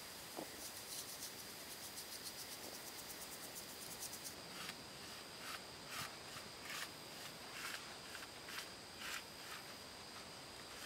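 Paintbrush stroking varnish onto rough wooden blocks: short scratchy brushing strokes about twice a second, starting about four seconds in. Insects sing in a steady high tone throughout.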